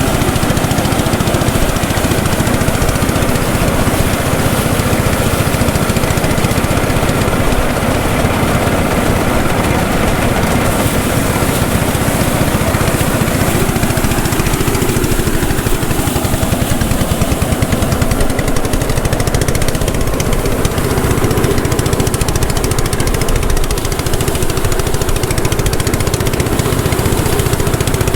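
Engine-driven rice threshing machine running steadily, its engine and threshing drum making a loud, continuous mechanical noise.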